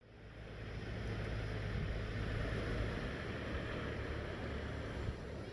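Wind buffeting the microphone: a steady low rumble under a broad hiss, fading in at the start.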